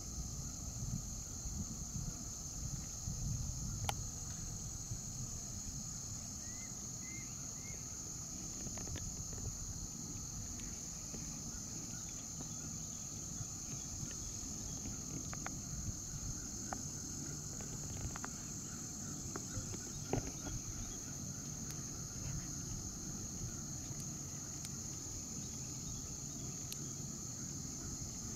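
Insects chirping in a steady, high-pitched chorus over a low rumble, with a few faint ticks.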